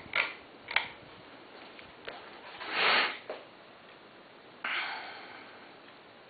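A person sniffs once, loudly, about three seconds in, over the faint steady running of a Lasko 3600L ceiling fan. There are two sharp clicks in the first second and a short rush of noise near the end that fades out.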